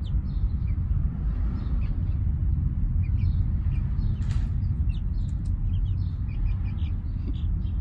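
Young chicks peeping in faint, scattered short chirps over a steady low rumble.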